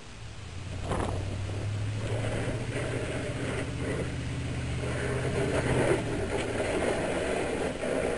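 1997 Chevy 2500 pickup pushing snow with a Boss straight plow blade as it approaches: a steady engine hum from about a second in, under a rushing, scraping hiss of snow being pushed that grows louder toward the end.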